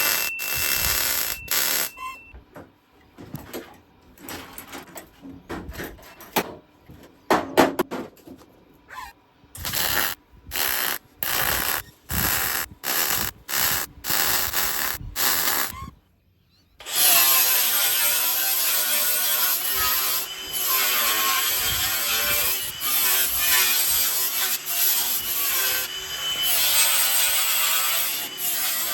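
MIG welder laying a string of short stitch-weld bursts along a steel sill panel, each about half a second to a second long with short gaps between them. After a brief pause, a continuous wavering whine runs for the rest of the time.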